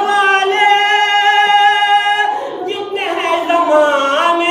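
An unaccompanied voice singing a devotional poem in a melodic recitation style. It holds one long steady note for about two seconds, then moves into a phrase of sliding, ornamented pitch.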